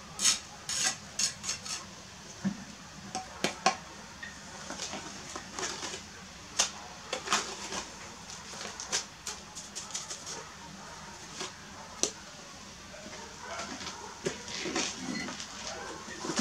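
Steel mason's trowel clinking and scraping against a bucket as mortar is worked and scooped: irregular sharp clinks, a quick run of them in the first two seconds, then scattered taps.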